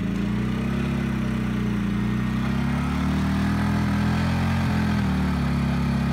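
Generac iQ2000 inverter generator's engine running under a 1500-watt heat gun load: its speed climbs from eco-mode idle in the first second as the load comes on, then holds a steady, louder drone.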